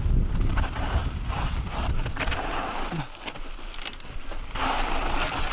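Mountain bike on rough trail: tyres and frame clattering over rocks and roots with irregular knocks over a low rumble, easing off briefly about halfway through.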